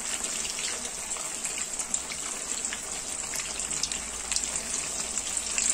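Parippu neyyappam cakes deep-frying in hot oil in an aluminium wok: a steady bubbling sizzle with many small crackles.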